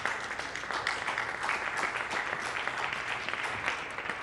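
Applause: many hands clapping together in a dense, steady patter.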